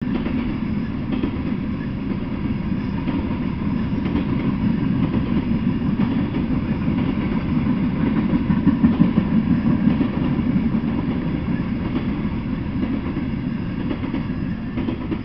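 Freight train of open-top freight cars rolling past, a steady rumble of wheels on rail that peaks about halfway and eases slightly as the last cars go by near the end.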